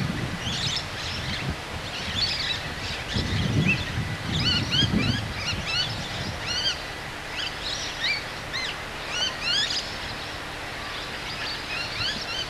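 Many birds chirping in quick short calls, with gusts of wind buffeting the microphone. From about seven seconds in, a faint steady low hum joins: the diesel locomotive of an approaching freight train.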